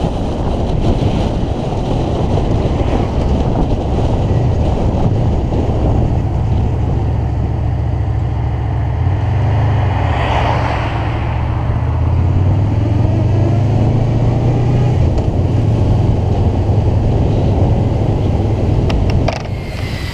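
Wind buffeting the microphone as a Honda VFR800X rides at road speed, with its V4 engine droning steadily underneath. An oncoming car passes about halfway, and the sound cuts off abruptly about a second before the end.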